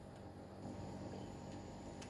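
Faint, steady room tone: a low hum and hiss with no distinct events.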